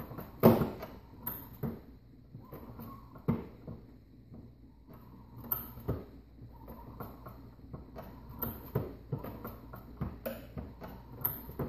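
Lee Pro 1000 progressive reloading press being cycled by its handle: irregular metallic clicks and clunks from the ram and shell plate, the loudest about half a second in. The press is being worked to check its indexing timing, which is found to be off.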